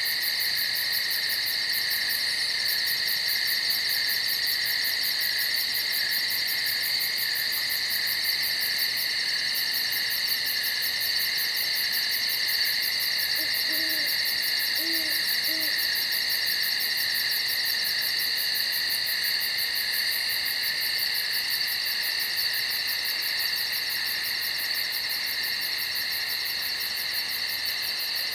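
Night-time chorus of crickets and other insects, a steady high-pitched trilling with a fast even pulse. About halfway through, an owl gives three short low hoots.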